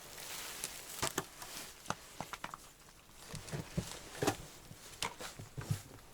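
A puppy making irregular small clicks and taps, about a dozen over a few seconds, with a few soft low thumps in between.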